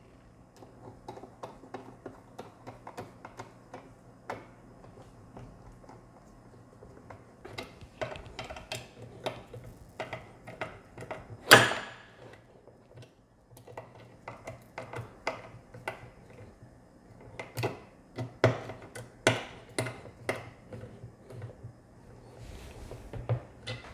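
Small bolts being driven with a hex screwdriver to fasten linear-rail carriage blocks to a 3D-printed plate: a scatter of light clicks and ticks of metal driver, bolts and plastic, coming in clusters, with one louder knock about halfway through.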